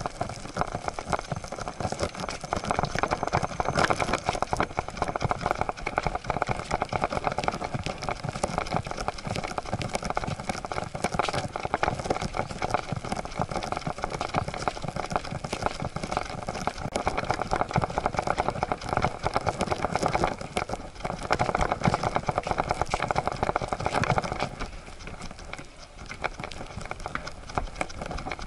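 Siberian husky's paws and claws pattering on wooden boardwalk planks in a fast, continuous run of taps, picked up close by a camera strapped to the dog's back. It eases off briefly near the end.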